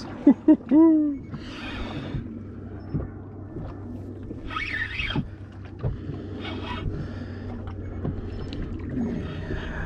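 Spinning reel being wound in against a hooked fish aboard a small boat, with wind and water noise around it. A short wordless exclamation comes in the first second.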